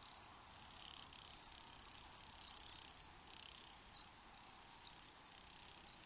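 Faint crickets chirping in repeated short bursts of a second or less, high-pitched, over a steady low hiss.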